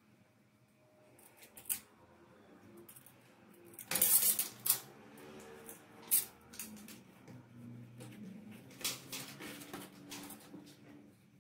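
A plastic-wrapped CD case being handled: short crinkles and scrapes of thin plastic film and light taps on the case, loudest in a burst of crinkling about four seconds in.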